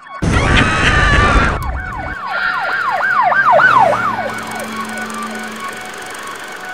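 A loud noisy burst for about two seconds, then a siren wailing up and down quickly, about two sweeps a second, fading away after a couple of seconds.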